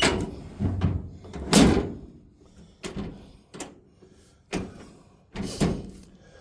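Steel tailgate of a Dodge pickup being slammed and worked: a series of about seven sharp metallic clunks and knocks from the tailgate and its latches, the loudest a slam about one and a half seconds in.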